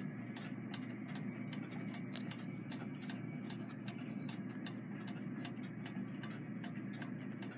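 Steady low room hum with a rapid scatter of small, faint clicks and ticks.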